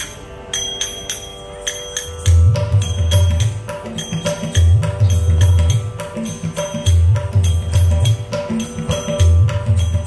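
Instrumental opening of a devotional abhang in the Carnatic style: violin melody over a steady drone, with small metallic strikes keeping time and deep drum strokes swelling about every two seconds from about two seconds in.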